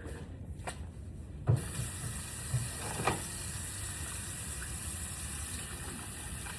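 Sink tap turned on about a second and a half in, with water then running steadily into the basin for hand washing. A few light knocks come in the first seconds of the flow.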